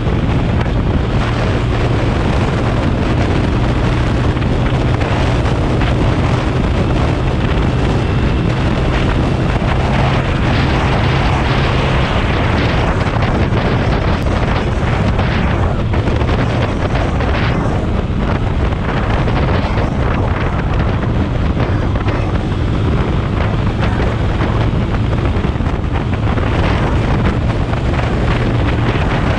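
TVS Apache RTR 180's single-cylinder engine running steadily at highway speed, under heavy wind noise rushing over the helmet-mounted microphone.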